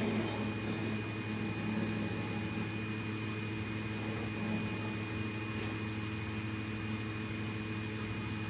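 Steady low hum and hiss with a thin, constant high whine, and no distinct sound events.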